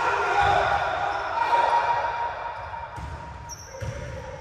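Basketballs bouncing on a hardwood gym court: dull thuds about half a second in, then a quicker run of them near the end.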